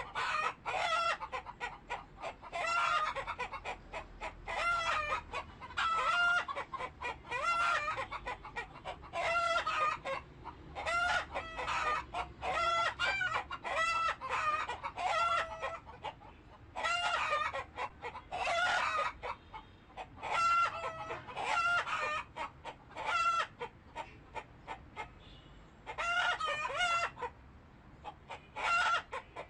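Chickens calling over one another, clucking with roosters crowing: short pitched calls repeated almost without pause, dropping off briefly about 24 seconds in before picking up again.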